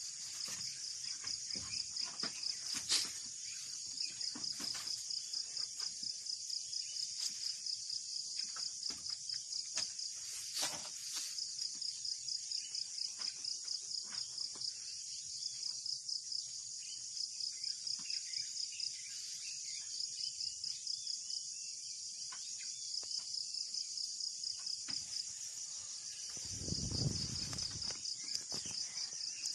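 Insects chirring in a steady, high-pitched chorus that pulses in quick regular beats, with a few sharp clicks and a low sound lasting about two seconds near the end.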